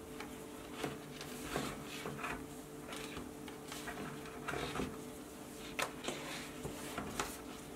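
Faint rustling and small clicks of paracord being handled and pulled through a woven collar, a handful of short scrapes spread through, over a steady low hum.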